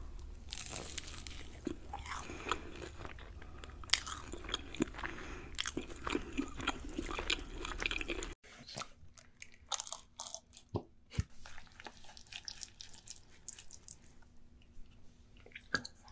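Close-miked eating sounds: crunchy bites and chewing of fried chicken nuggets smothered in cheese sauce. About eight seconds in, a cut brings quieter, sparser crunching and chewing from another recording.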